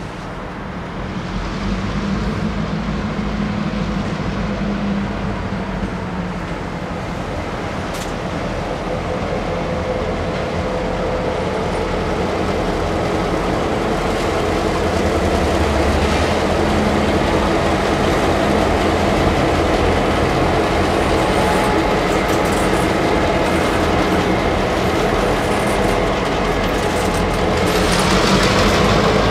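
A Norfolk Southern freight train passing: two diesel locomotives lead with a steady engine drone that grows louder about two seconds in, then freight cars roll by with wheel and rail noise that swells near the end.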